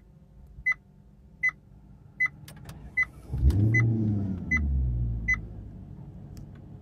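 Maserati GranTurismo's instrument-cluster warning chime pipping about every three-quarters of a second. About three and a half seconds in, after a few clicks, the 4.7-litre V8 starts with a loud flare in revs that settles toward idle as the chimes stop.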